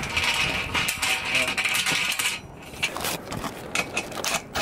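A steady hissing rattle for about two seconds, then a run of sharp metallic clinks and taps as solar mounting-rail hardware is handled and fastened on the roof.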